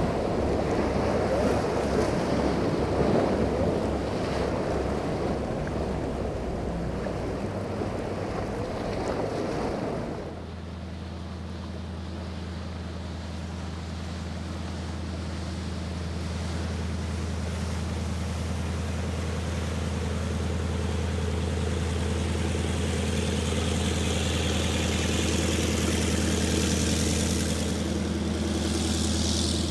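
Wind on the microphone and rushing water with boat engines underneath for about the first ten seconds. After a sudden change, a Skater catamaran powerboat's engines run at a steady pitch, growing slowly louder toward the end.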